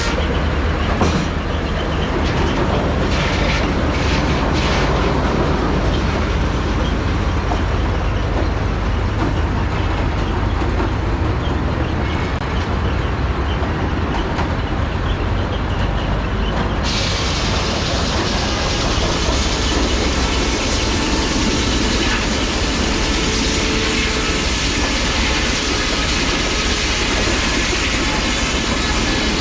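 Steam-era sawmill running, belt-driven by a 1910 Aultman Taylor 30-60 tractor: a loud, steady mechanical din with a few knocks early on. A bright hissing sound comes in a little past halfway and holds.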